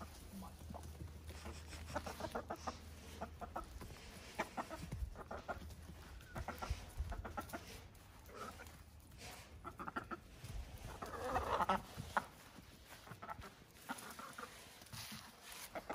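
Hens clucking softly in short, scattered calls, with a louder run of clucks about eleven seconds in.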